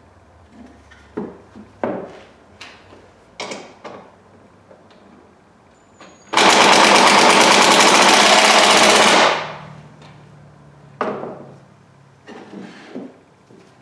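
Cordless impact driver driving a screw into pine boards, a loud rapid rattle of its hammering for about three seconds from a little past the middle, then stopping. Before and after it, a few knocks of wood pieces handled on the bench.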